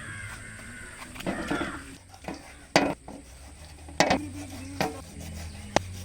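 Clatter of kitchen utensils on a hard surface: three sharp knocks about a second apart, with lighter taps between them, over a steady low hum.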